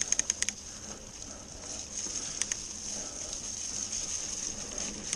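Canyon mountain bike rolling along a wet, leaf-covered dirt trail: steady tyre and drivetrain hiss, with a quick run of sharp clicks at the start and a couple more about two and a half seconds in.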